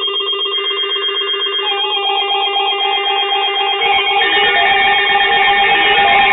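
Weather radio alert alarms: several receivers' alarm tones going off together, rapid pulsing beeps layered over steady tones, with more alarms joining in about two and four seconds in, announcing a severe thunderstorm warning.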